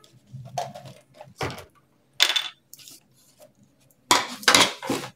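Plastic French curve ruler clattering on the paper-covered table as it is picked up, turned and set down to draw a neckline: a handful of light knocks and clinks, the loudest cluster near the end.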